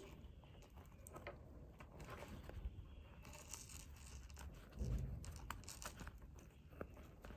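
Faint rustling and scraping of 3 mm polyester nautical cord being pulled through stitches with a crochet hook, with scattered soft clicks.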